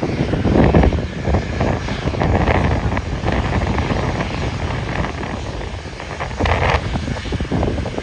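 Jet airliner departing at takeoff power: a loud, steady engine rumble with a fine crackle.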